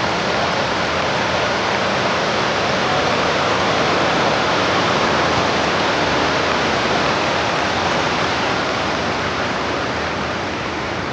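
River water rushing steadily, an even, loud wash of noise.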